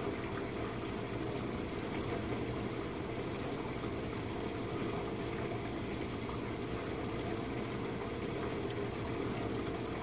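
Jenn-Air dishwasher running its Quick Wash cycle: the circulation pump hums steadily while water sprays and sloshes inside the closed tub.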